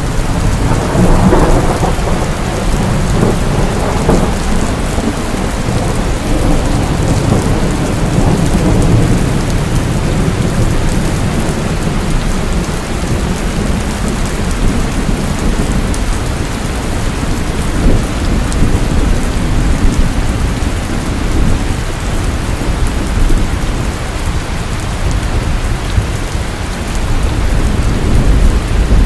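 Steady rain with thunder rumbling low underneath, swelling louder in the first few seconds.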